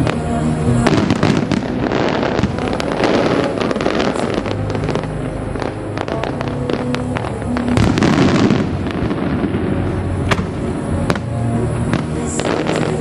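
Aerial fireworks going off: shells bursting with sharp bangs and dense crackling, heaviest about a second in and again around eight seconds in, over music playing throughout.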